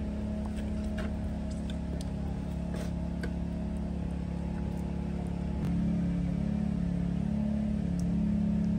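A steady low motor hum that gets a little louder just over halfway through, with a few faint light clicks.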